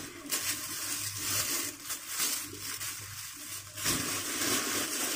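Plastic bags crinkling and rustling as groceries are handled and unwrapped by hand.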